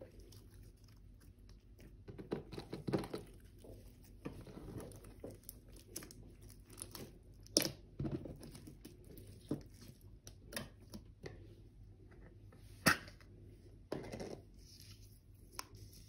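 A large mass of slime being kneaded and stretched by hand, making irregular wet squelches and crackles, with two sharp pops about a third and four-fifths of the way through.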